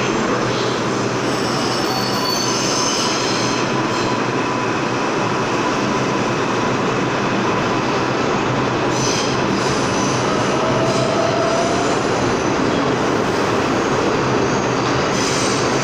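Stainless-steel subway train rolling into an underground station and slowing to a stop, a steady loud rumble of steel wheels on the rails with faint squeals and one short sliding squeal partway through.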